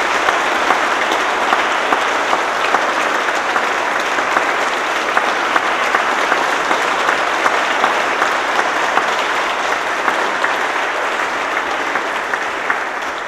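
Applause from the members of parliament: steady, dense clapping that dies away near the end.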